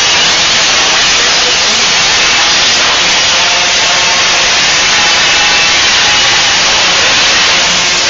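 Several 50cc two-stroke youth motocross bikes running at high revs around the track, a loud, steady, buzzing engine noise.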